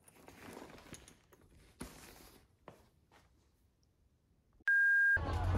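Faint rustling of fabric lunch bags being handled and stacked on a stone countertop, with two light knocks. About five seconds in, a short, loud, single-pitch electronic beep cuts off suddenly, and background music starts.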